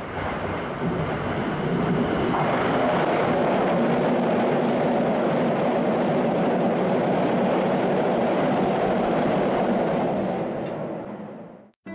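Toei 5500 series electric train passing close by, its running noise building up, holding steady, then fading away and cutting off just before the end.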